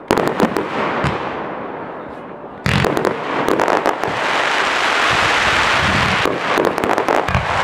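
Aerial fireworks display: a cluster of sharp bangs as shells burst at the start, then a sudden, louder barrage of bangs just under three seconds in. This gives way to a dense, steady rush of noise, with more bangs near the end.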